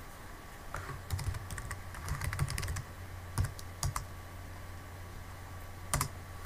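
Computer keyboard keystrokes: a quick run of typing through the first three seconds, then a few single key presses, over a faint steady low hum.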